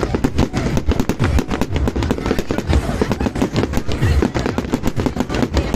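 Fireworks display: a dense, rapid string of bangs and crackles, many a second, with deep thuds among them.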